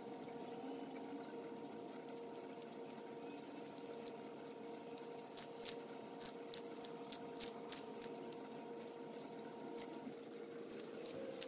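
Faint quick clicks and crunches of a sulcata tortoise biting and tearing romaine lettuce, played back at four times speed, over a steady high hum.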